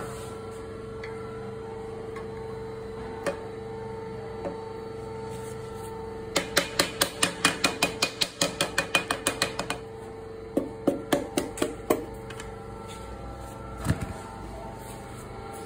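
Rapid hammer taps on metal, about eight to ten a second, in a run of about three seconds midway and a shorter run of about a second and a half after it, with a few single knocks. A steady hum runs underneath.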